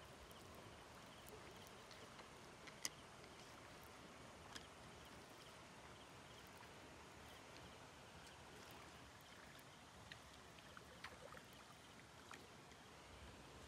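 Near silence: faint outdoor ambience with a few small clicks, the sharpest about three seconds in and a cluster of softer ones near the end.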